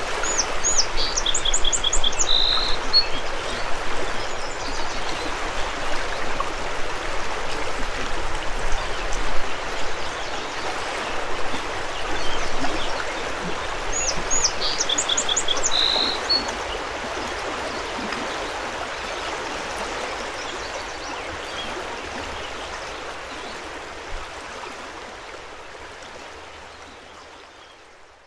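River water rushing steadily, with a songbird singing a short phrase of quick notes twice, about thirteen seconds apart. The whole sound fades out slowly over the last dozen seconds.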